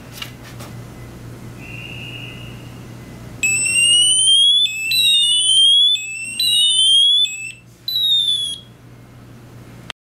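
Gozens 708AA bicycle anti-theft alarm set off by moving the tag for over two seconds. A click as the tag is handled, a short warning beep about two seconds in, then from about three and a half seconds a loud electronic siren of fast rising and falling sweeps that changes pattern several times and cuts off about a second and a half before the end.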